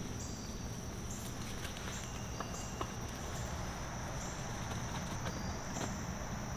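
Insects trilling steadily in a high, even pulse, with scattered light clicks and knocks from a hunter's gear as he climbs down a tree stand.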